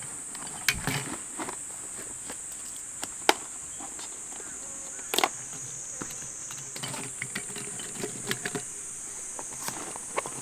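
Steady high-pitched drone of summer insects, with scattered sharp clicks and knocks, the loudest about three seconds in and another about five seconds in.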